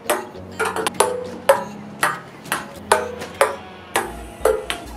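Ping pong ball bouncing repeatedly off wooden stool tops, skipping from stool to stool. It gives a sharp hollow tap about twice a second.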